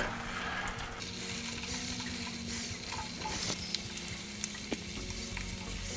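Raw potato pieces frying in vegetable oil in a cast-iron pan that is still heating up, giving a steady soft sizzle, with a few faint taps as fresh pieces drop in.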